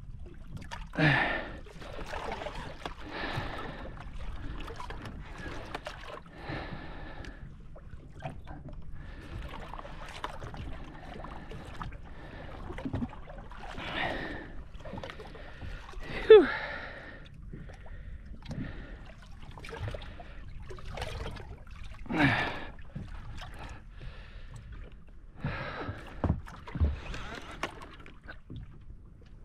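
Water lapping and sloshing against a small boat's hull, with irregular short splashes and a man's grunts and gasps of effort, the loudest about halfway through.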